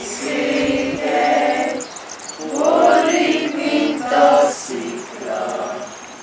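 A group of young people singing together in unison, in a few held phrases with short breaks between them.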